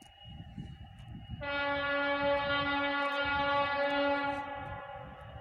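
Horn of a TEM2 shunting diesel locomotive sounding one long, steady, very loud blast about three seconds long, starting about a second and a half in, over a low rumble.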